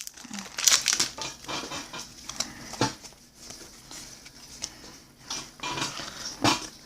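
Trading cards being handled and flipped through by hand: scattered light taps, slides and rustles of card stock, with a sharper snap about six and a half seconds in.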